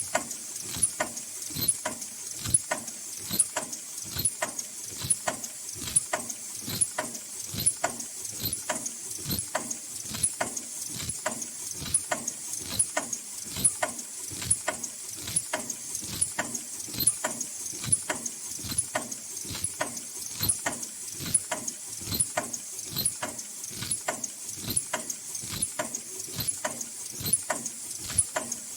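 Automatic N95/FFP2 mask production line with inline packing running at high speed: regular mechanical clacking, two or three strokes a second, over a steady high hiss.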